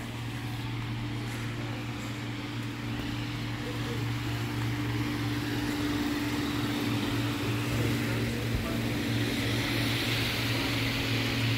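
Steady machine drone with a constant low hum, the noise above it swelling a little near the end.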